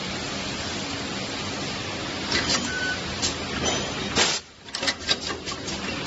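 Semi-automatic wire seal loading, stripping and crimping machine cycling on a wire: a steady mechanical noise, then a string of clicks and knocks from about two seconds in, a loud burst a little past four seconds, and a quick run of clicks near the end.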